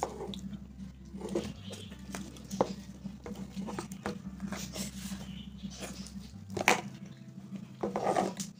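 Metal spoons scraping and tapping against the insides of plastic ice cream tubs in scattered clicks and knocks, over a steady low hum.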